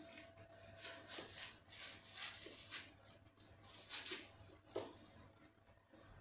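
Food being served onto a plate with a utensil: a series of short scraping and rustling strokes, several seconds' worth, over a faint steady hum.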